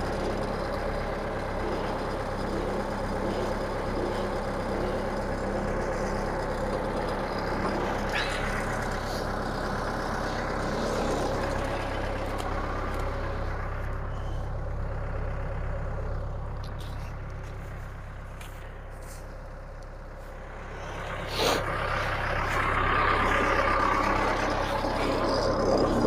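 Compact tractor engine running steadily while its front loader lowers a load. The engine eases off about two-thirds of the way through, there is one sharp knock, and then it picks up again and runs louder.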